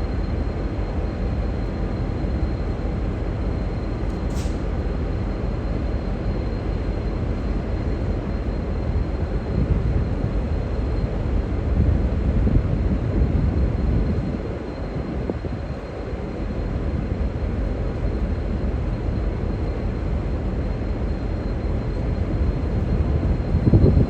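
V/Line N class diesel-electric locomotive running with a steady low rumble while shunting passenger cars, a little louder for a few seconds around the middle. A brief high squeal comes about four seconds in.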